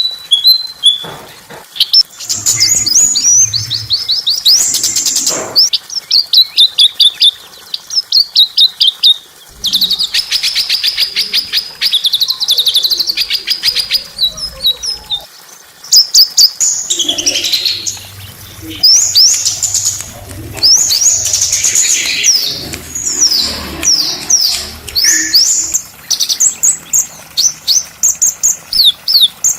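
Small songbirds singing in fast, high-pitched strings of sharp chirps and trills, with many quick downward-sweeping notes.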